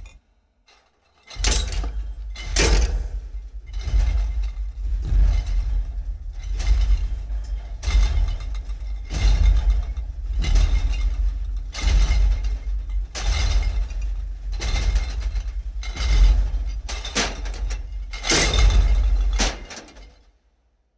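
Sound-effect footsteps of a giant monster: heavy stomps about every second and a quarter, each with a crunching crack over a constant deep rumble. They start after a short silence and fade out near the end.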